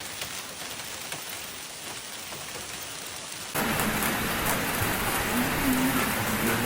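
Heavy rain falling on hard surfaces, a steady hiss that jumps suddenly louder about three and a half seconds in.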